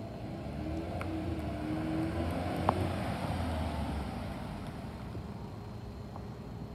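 2018 Ram ProMaster City cargo van's 2.4-litre four-cylinder engine and tyres as it drives past, growing louder over the first two to three seconds and then fading as it pulls away. A single sharp click near the middle.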